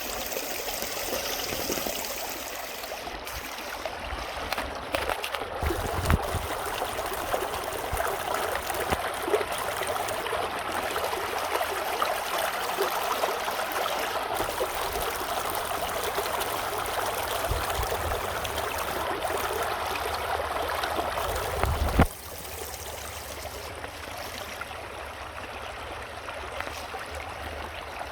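Mountain valley stream, water running and trickling over rocks in a steady rush. About 22 s in there is a single sharp bump, after which the water sounds softer.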